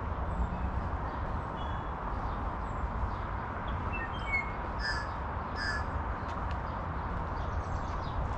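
Birds calling in the trees over a steady outdoor background: scattered short chirps, then two louder calls close together about five seconds in.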